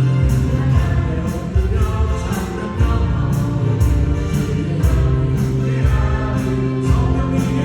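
Contemporary worship band playing with several voices singing together: keyboards, drums and acoustic guitar under the vocals, with a steady drum beat.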